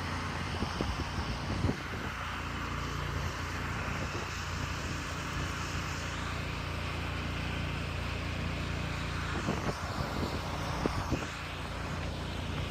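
Pressure washer engine running steadily, with the spray of water from the wand. A few light knocks about two seconds in and again near ten seconds.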